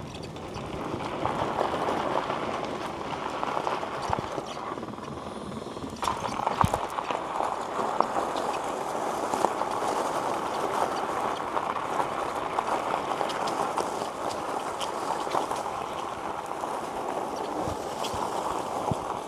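Electric bike in motion on a rough path: a steady rushing noise of tyres and wind, with frequent small clicks and rattles and a sharper knock about six and a half seconds in.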